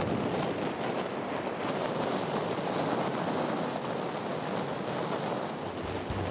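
Waves breaking in heavy surf: a steady rushing noise.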